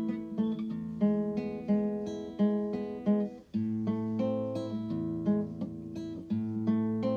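Background music on acoustic guitar, plucked and strummed chords in a steady rhythm, with a brief break about three and a half seconds in.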